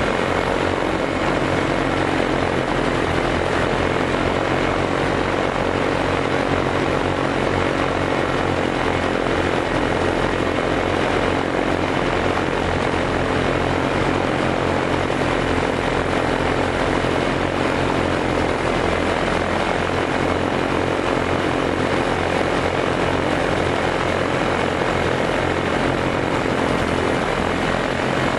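Small aircraft's engine and propeller running steadily at cruise, heard from on board, with a constant rush of air.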